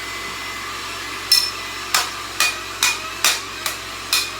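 Hair dryer running with a steady blowing hum, then from about a second in, a series of sharp strikes with a metallic ring, roughly two a second, seven in all.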